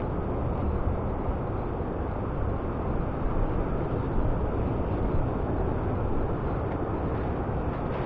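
Steady low rumble of wind across open sand dunes, with no distinct events.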